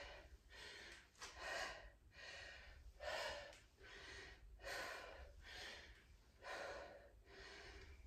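A woman breathing hard and rhythmically while doing dumbbell squat presses. Faint, quick breaths come about one every three-quarters of a second.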